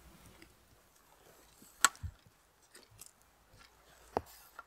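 Camera and tripod handling: a sharp click, a soft knock just after it, and a second click about two seconds later.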